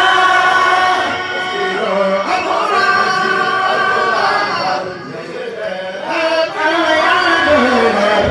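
A crowd of men chanting a Sufi zikr together in long sung lines, the melody gliding between held notes; it dips briefly about five seconds in.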